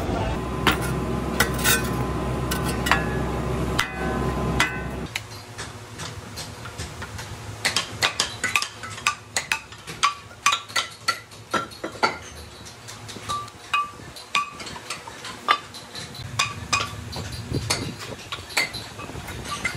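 Irregular sharp metallic clinks and taps of a hand hammer striking cast-iron brake discs, often several a second. For the first five seconds they sit over a steady low rumble, which then drops away.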